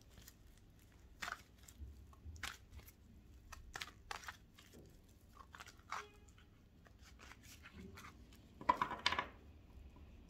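A deck of tarot cards being shuffled by hand: irregular papery rustles and soft card clicks, with one louder rustle about nine seconds in.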